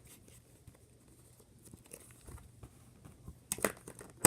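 Slime full of foam beads being squished in its container: small crackling, crunching clicks, with a louder burst of crackles about three and a half seconds in and a sharp click at the end.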